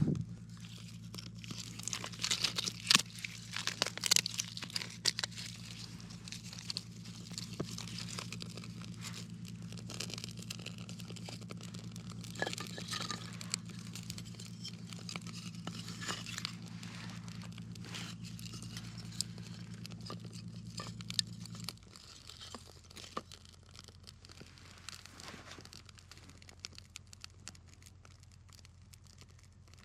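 Newly lit wood campfire crackling, with irregular sharp pops and snaps. A steady low hum runs underneath and cuts off about two-thirds of the way through.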